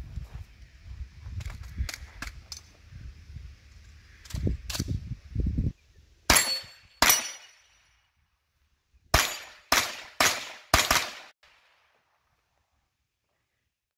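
Pistol-caliber carbine firing: two sharp shots about two thirds of a second apart, a pause of about two seconds, then a quick string of four shots about half a second apart. Before the shots there is a low, uneven rumble with a few scattered clicks.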